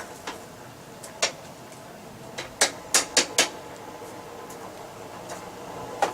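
Coal forge with its hand-cranked blower running steadily, with a few sharp clicks: one about a second in and a quick run of four around the middle.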